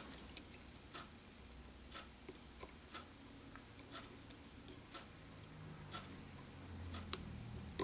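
Faint, even ticks about once a second, like a clock ticking.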